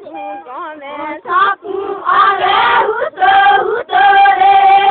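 Women singing together without instruments, in long held notes; the singing swells louder about a second in.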